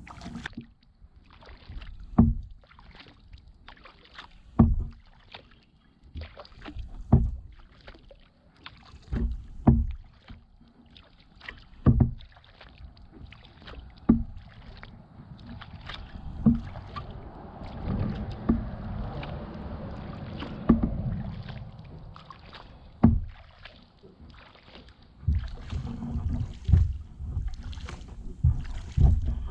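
Kayak paddle strokes in the water, a short splash or knock about every two and a half seconds, coming quicker near the end.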